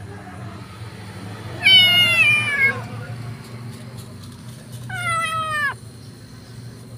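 Kitten meowing twice, each meow about a second long and falling in pitch at the end, the first louder.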